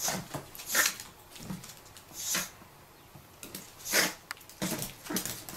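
Chihuahua sniffing and snorting in short bursts with its nose pushed into the bedding where a ferret hides, every second or so, with several quick ones near the end.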